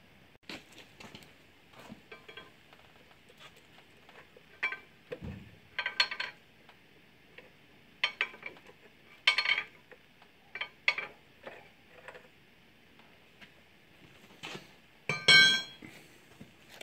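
Irregular metal clinks and knocks as a stuck alternator is worked loose and pulled from its mounting brackets, with a dull thump about five seconds in and the loudest rattling clatter near the end.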